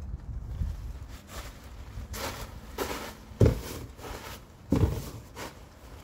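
Footsteps on a plastic tarp: a few short rustling crinkles and heavy thumps, the loudest thump about three and a half seconds in. Wind rumbles on the microphone throughout.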